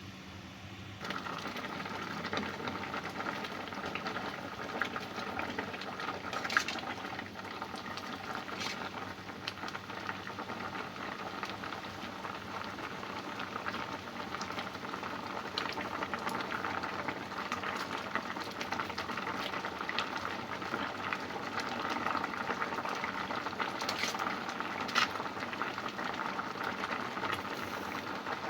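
Pot of pounded cassava leaves boiling steadily, coming up louder about a second in, with a few light clicks.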